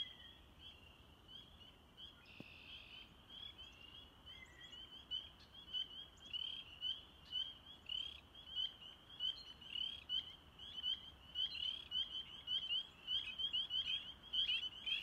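A chorus of spring peepers: many short, high, rising peeps overlapping in a steady stream, growing louder and denser through the second half.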